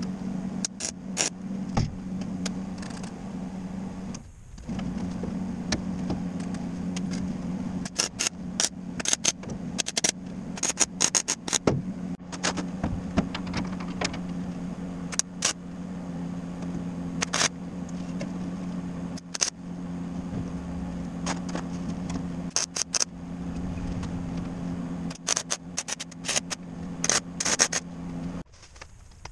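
Electric arc welding: a steady buzz with many sharp crackles and pops. The arc stops for a moment about four seconds in and cuts off shortly before the end.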